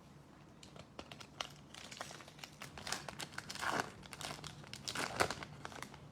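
Foil wrapper of a football trading-card pack crinkling and tearing, a dense run of crackles that starts about a second in and grows louder in bursts toward the middle and end.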